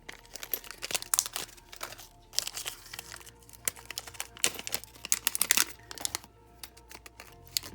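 Plastic packaging crinkling and rustling as it is handled, in quick irregular crackles, over faint background music.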